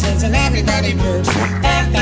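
Background song with a steady bass beat and a wavering sung or played melody line.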